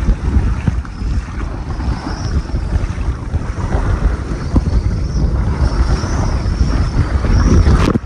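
Heavy wind rumble on the microphone over the rushing and splashing of rough seas as a Contessa 26 sailboat drives through breaking waves, with spray thrown across the deck.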